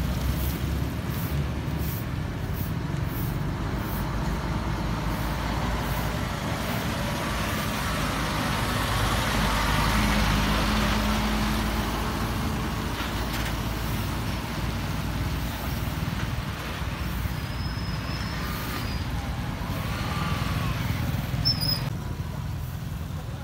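Road traffic: heavy diesel trucks and motorbikes driving past, with one multi-axle truck passing close and loudest about ten seconds in.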